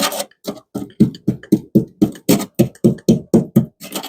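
Screwdriver jabbed repeatedly into rusted car sheet metal where mud has been sitting, a rapid run of dull knocks, about five a second, as the tip breaks into the rotten steel.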